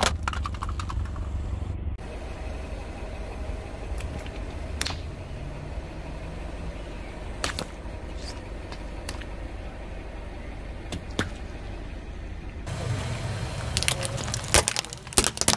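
Car tyre rolling slowly over small plastic toys and other objects, with a low rumble from the car and scattered sharp cracks and snaps as things break under it. Near the end comes a quick cluster of cracks as a row of plastic syringes is crushed.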